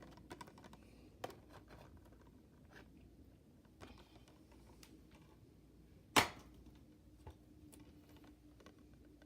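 Plastic Blu-ray case being handled, with light scattered clicks and one sharp plastic click about six seconds in.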